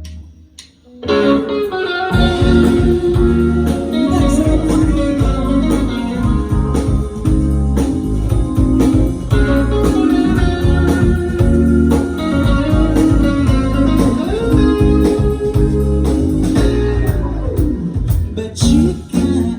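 Rock band playing a guitar-led instrumental intro with bass and drums. The band comes in at full volume about a second in.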